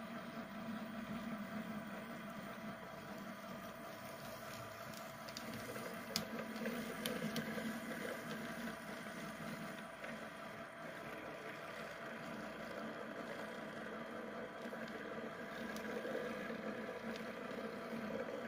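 HO scale model diesel switcher locomotive running along the track: a steady mechanical hum, with a few sharp clicks about six and seven seconds in.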